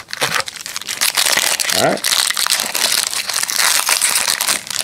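A trading-card pack wrapper being crinkled and torn open by hand: a dense, continuous crackle of small clicks.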